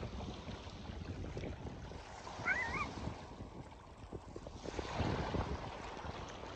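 Wind buffeting the phone's microphone, with lake water lapping and splashing at the shore. A brief high-pitched voice cries out about two and a half seconds in.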